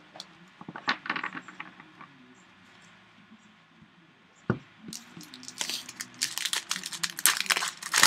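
Trading cards being handled with a few light clicks, a single knock about halfway, then a foil card-pack wrapper crinkling and tearing open in a dense crackle over the last three seconds.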